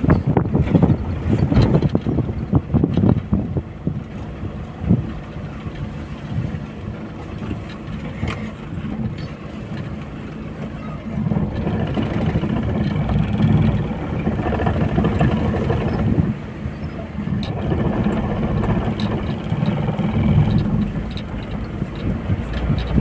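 Vehicle interior on a rough dirt track: the engine runs steadily under the knocks and rattles of the cab and suspension bumping over ruts, which are thickest in the first few seconds. The engine sounds fuller in the second half.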